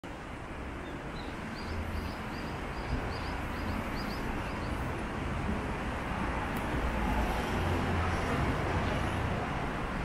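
Road traffic on the loop bridge overhead: a steady rumble and hiss of passing vehicles that slowly builds in loudness. In the first few seconds a run of about ten short high chirps sounds over it.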